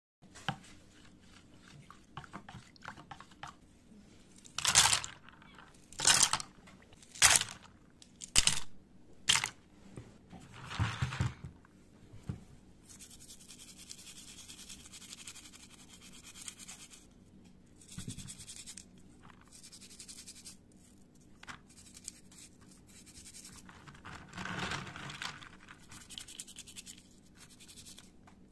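Toothbrush bristles scrubbing wet plastic keycaps in soapy water, a steady high brushing hiss with short pauses between strokes through the second half. Before that come about six loud short bursts of noise.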